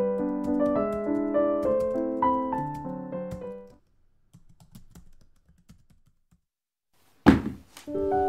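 Gentle solo piano background music that stops a little under four seconds in, followed by a few faint light taps and a pause, then one sharp loud thump about seven seconds in. The piano music starts again near the end.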